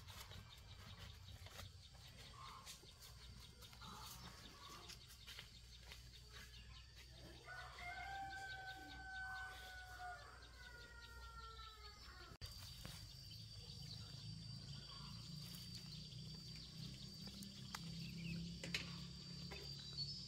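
A bird call, faint and drawn out over about four seconds near the middle, holds its pitch and then falls away at the end. After a cut about twelve seconds in, a steady high-pitched whine carries on.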